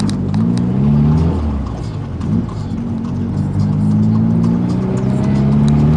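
Volkswagen Gol's engine running through a JK aftermarket exhaust while driving, its pitch climbing, dropping about a second and a half in, then holding a steady drone.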